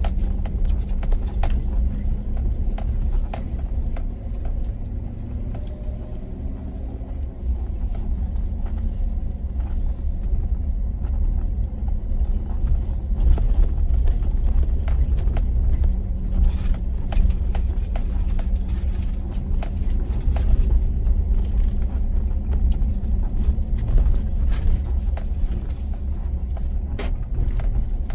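Vehicle driving slowly along a rough dirt track, heard from inside the cab: a steady low road and engine rumble with scattered clicks and knocks from bumps and rattles.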